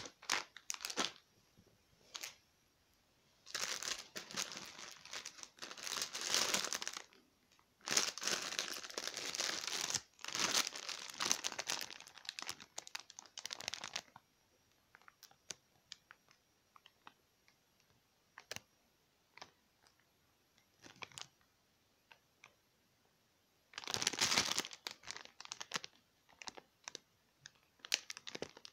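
Thin plastic film wrapping of a train hygiene pack crinkling and rustling as it is handled, in three long bursts with only small crackles between them.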